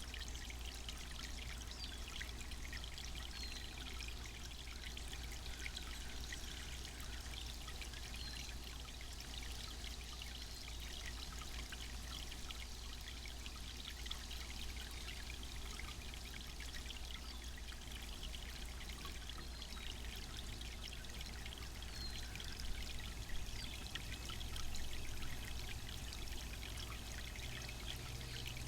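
Garden water fountain pouring and trickling steadily, with a few louder splashes in the last third.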